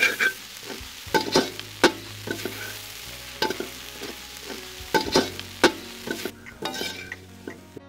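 A metal spatula scraping and knocking irregularly against a large metal wok, stirring crumbled fish frying in oil, with a sizzle underneath. The sizzle drops away near the end.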